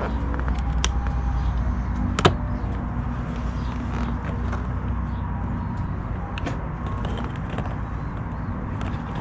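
Small sharp plastic clicks and taps from prying a door puddle-light lamp out of the door trim and working its plug-in connector; the loudest click comes a little over two seconds in. A steady low rumble runs underneath.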